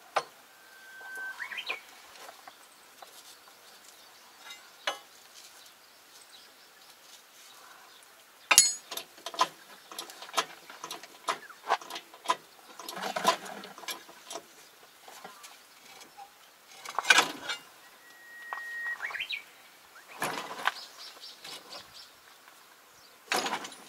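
Hand tools clinking and knocking on metal at a crawler's track and undercarriage during a repair, in scattered sharp knocks, some of them ringing. A bird whistles twice: a held note that sweeps upward at the end, once near the start and once near the end.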